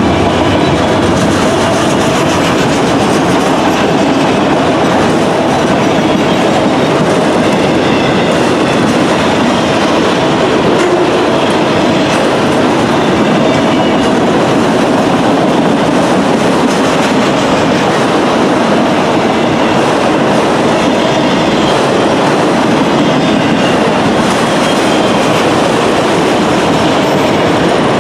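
Freight train passing close by: its cars rolling steadily over the rails with a loud, continuous rumble and clickety-clack of wheels over rail joints.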